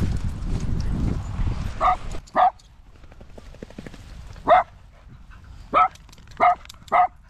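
A small dog barking: six single, sharp barks about a second apart, starting about two seconds in. Before them, a low rumbling, clicking noise close to the microphone.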